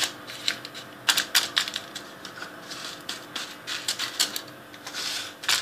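Fingers pressing and patting crushed Oreo cookie crumbs into a foil-lined pan: irregular light taps and crackles.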